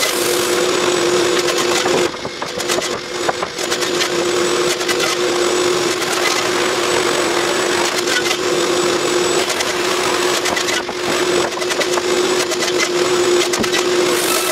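Wooden stakes clattering as they are handled and stacked, over the steady hum of a woodworking machine running. The machine noise dips briefly about two seconds in and again near eleven seconds.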